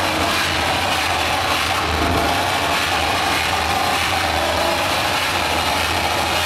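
Harsh noise music played live on analog synthesizers, a mixer and effects pedals: a loud, unbroken wall of distorted noise filling the whole range, with a deep hum underneath.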